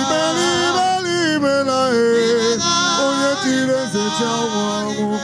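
A man singing a slow, melismatic worship song with held, wavering notes over a steady instrumental backing.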